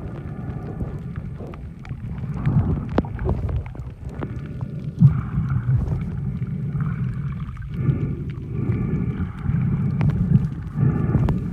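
Small boat's engine running under way, a low steady rumble with irregular swells and faint on-and-off tones.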